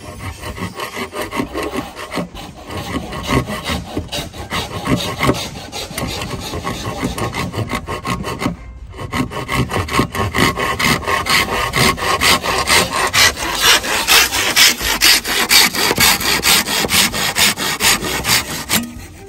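Japanese pull saw (Z-saw) cutting through a green bamboo pole in quick back-and-forth strokes. There is a short pause about nine seconds in, then the strokes come louder until they stop near the end.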